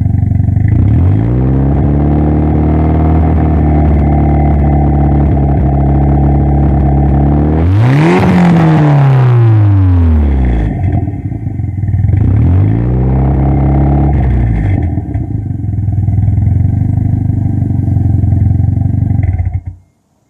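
Toyota Celica GT-Four ST205's turbocharged 3S-GTE four-cylinder engine running while being revved: the revs rise and are held, a quick blip rises and falls about eight seconds in, the revs climb and settle again, and then the engine is switched off near the end. The engine is being run to show a misfire.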